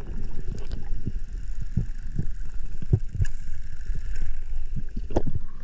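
Muffled underwater water noise on a camera microphone: a low rumble with irregular soft knocks and thumps.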